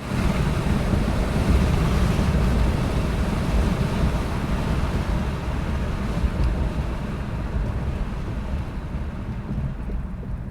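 Engine running on a test run after a vacuum leak and clog: a loud, steady low rumble, with the hiss above it fading over the last few seconds.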